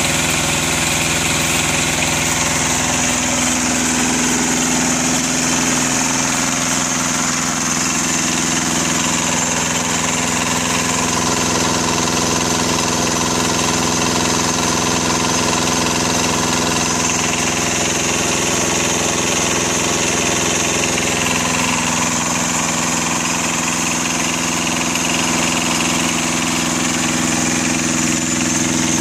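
Yanmar Thermo King two-cylinder diesel engine running steadily, freshly started, belt-driving a Honda 4500 W generator head.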